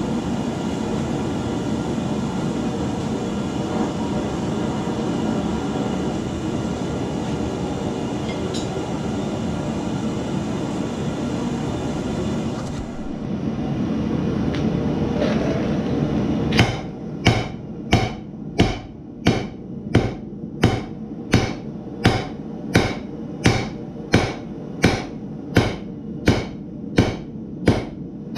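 Steady roar of a gas forge burner; about sixteen seconds in, a hand hammer starts striking a glowing layered Damascus steel billet on the anvil, about a blow and a half per second, some eighteen blows over the burner noise.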